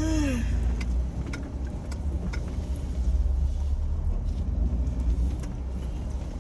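Jeep driving slowly on an off-road trail: a steady low engine and drivetrain rumble with scattered clicks and knocks.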